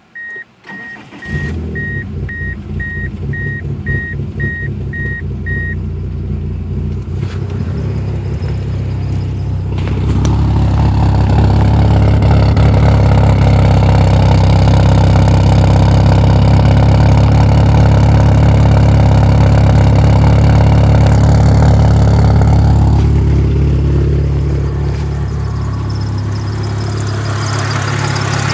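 1997 Mitsubishi Eclipse RS's 2.0-litre four-cylinder engine cranked and catching, then running with the rough idle the owner cannot explain, while a repeating dashboard chime beeps for the first several seconds. The engine runs louder from about ten seconds in and settles back down about twenty-three seconds in.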